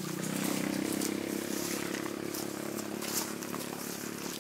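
Small two-stroke earth auger engine running steadily, with scattered scrapes and knocks of a hoe packing soil around a post.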